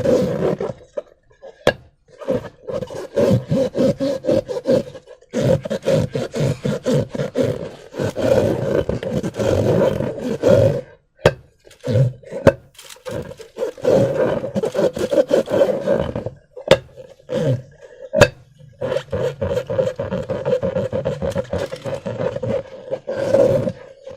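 Slime being squeezed and worked, making wet crackling squelches in bursts a few seconds long, with short pauses between.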